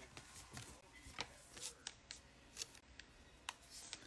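Faint handling of baseball trading cards: a few scattered light clicks and rustles as the cards are flicked and set down on a stack.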